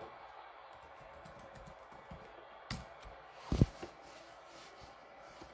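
A few light taps and knocks from objects being handled on a desk or table, with one louder thump about three and a half seconds in.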